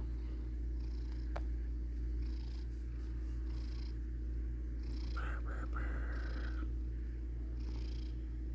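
Domestic cat purring steadily, a low continuous rumble with a faint airy rise about once a second as it breathes in and out.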